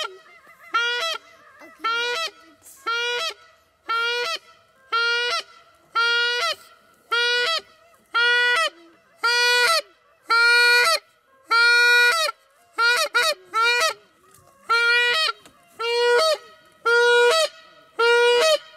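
Hunter's goose call blown in a steady series of honks, about one a second, each note breaking upward in pitch, with a quick double honk partway through: calling to bring passing geese in to the blind.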